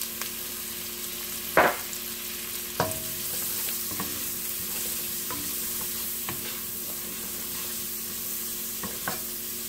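Diced onions sizzling in olive oil and butter in a pot while a wooden spoon stirs them. A few sharp knocks against the pot stand out over the sizzle; the loudest comes about a second and a half in.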